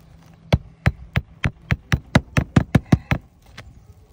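Claw hammer driving a roofing nail into an asphalt-shingle roof under a lifted shingle, about a dozen sharp blows coming quicker and quicker, then a last lighter tap. The nail is being set flush as a test of whether the shingle can be repaired.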